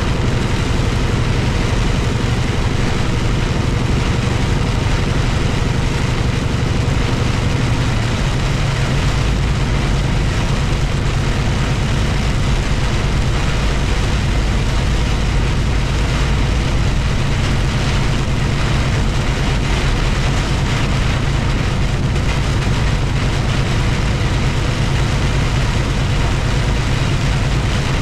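Steady engine and road noise inside a moving vehicle: a low drone with an even hiss above it.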